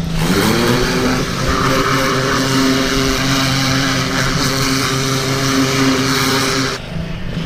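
A 2400 PSI pressure washer running under load with the trigger held, its motor humming steadily while the high-pressure jet hisses against the dirt bike. The spray stops about seven seconds in and the washer keeps running.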